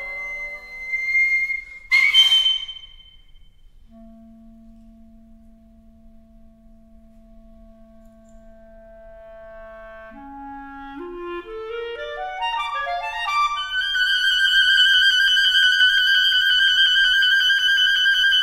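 Contemporary chamber music for nohkan, piri, sheng and clarinet. A held chord ends with a sharp, shrill high note about two seconds in. The clarinet then holds a quiet low note and climbs in a rising stepwise run, leading into loud, sustained high held tones from the ensemble.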